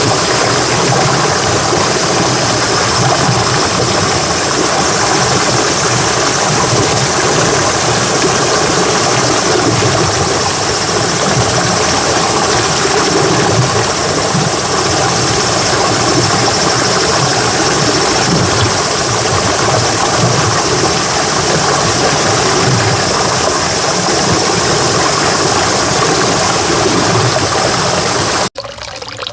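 Steady, loud rushing of water, even and unbroken throughout, with no surging or rhythm.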